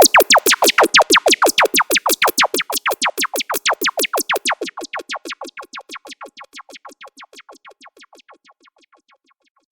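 Synthesized dancehall laser-zap effect: a fast train of short falling zaps, about six or seven a second, loud at first and fading steadily until it dies away about nine seconds in.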